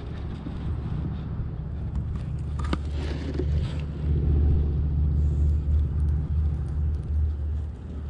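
A steady low rumble, louder from about four to six seconds in, with a few faint clicks and rustles of a rope being knotted by hand.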